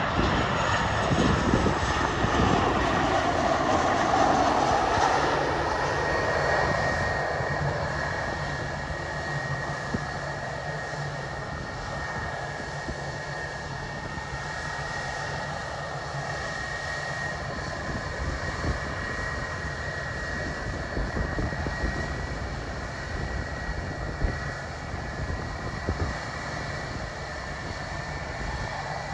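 Airliner engines passing close by, loudest in the first few seconds and then fading away to a steady, distant engine noise with a thin high whine and low rumble.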